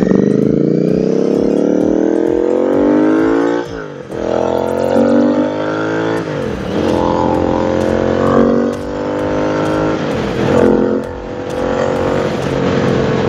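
Royal Enfield Continental GT 650's 648 cc parallel-twin engine, breathing through aftermarket headers without catalytic converters and nearly open slip-ons, pulling hard with a loud, bassy note. The pitch climbs for about four seconds, drops at an upshift, climbs again, drops at another shift about six seconds in, then holds at cruising speed with small throttle changes.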